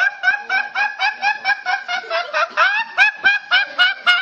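High-pitched laughter, a rapid run of short rising 'hee' notes, about five a second.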